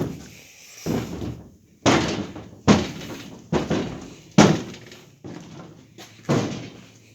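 Heavy footsteps over a debris-strewn floor, about one step a second, each a sharp crunching thud.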